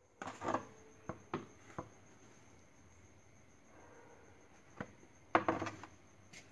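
White plastic tub being handled and shifted by hand: a series of sharp plastic knocks and rubs, with a cluster in the first second or so and another about five seconds in.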